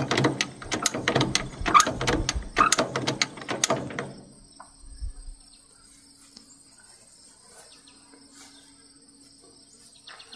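Rapid ratcheting metal clicks for about the first four seconds while the chipper shredder is levered up and propped, then crickets chirring steadily.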